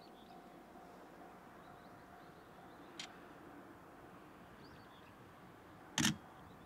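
Quiet open-air ambience with a faint steady hum and a few small birds chirping now and then. A light click comes about three seconds in, and a sharp, short knock, the loudest sound, near the end.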